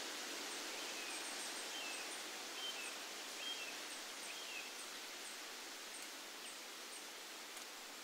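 Wind rustling the leaves of broadleaf woodland trees, a steady hiss. A few short bird chirps come through in the middle of it, along with faint, very high pips that repeat every half second or so.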